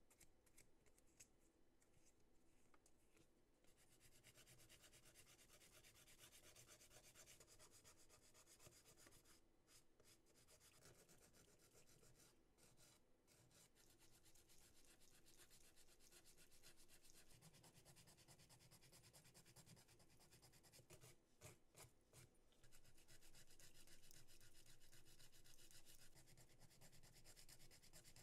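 Nail file rubbing back and forth over gel nail tip extensions, filing them into shape: a faint, continuous scratchy rasp that starts a few seconds in, breaks off briefly a few times and gets a little louder near the end.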